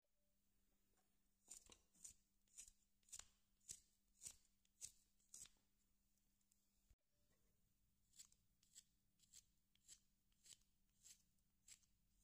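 Carving knife slicing shavings off a wooden figure in short, faint strokes, about two a second, in two runs separated by a brief pause.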